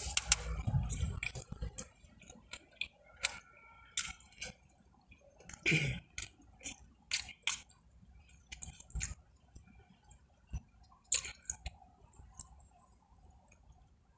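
Close-miked eating: wet chewing and mouth sounds, with scattered sharp clicks of a fork against a food bowl.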